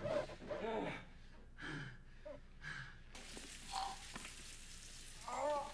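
Quiet stretch of faint, indistinct voices and breaths. There are a few short breathy sounds in the middle and a brief murmur of voice near the end.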